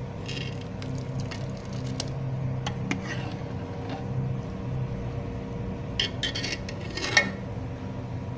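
Metal spoon and ladle clinking and scraping against a metal pot while stirring and scooping boiled lentils, over a steady background hum. The clinks come in scattered groups, busiest near the end, and the loudest clink comes a little past seven seconds in.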